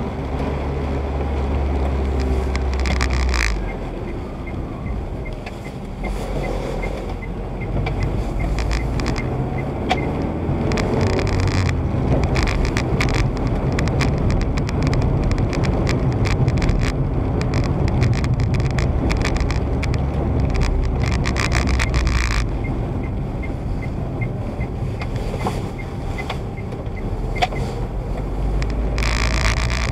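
A car being driven on a wet road, heard from inside the cabin: steady engine rumble and tyre noise on the wet tarmac. The road noise swells a few seconds in and falls back about two-thirds of the way through as the speed changes.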